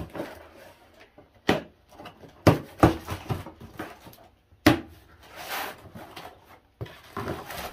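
Hardware parts being unpacked and handled: several sharp knocks as pieces are picked up and set down, with a stretch of rustling about halfway through.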